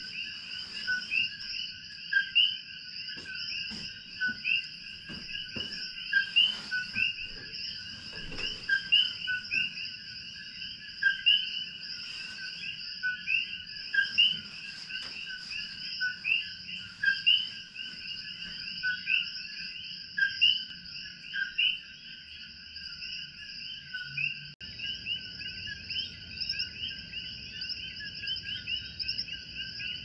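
A dense night chorus of common coquí frogs calling. Many short, rising two-note "co-quí" chirps overlap without pause above a steady chorus hum.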